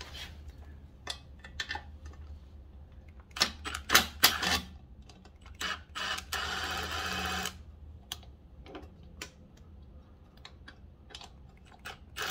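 Small metal clicks and clinks of fender mounting bolts being worked loose by hand on a mini bike's front fender, with a cluster of sharper knocks about three and a half to four and a half seconds in. A steady mechanical whir runs for about a second and a half just past the middle.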